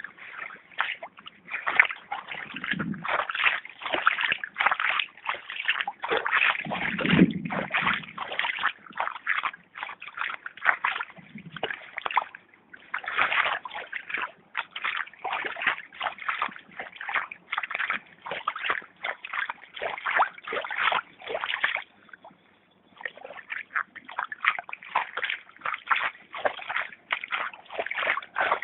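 Feet wading through shallow water over pavement: a steady run of splashing steps, about two a second, with a brief pause about three quarters of the way through.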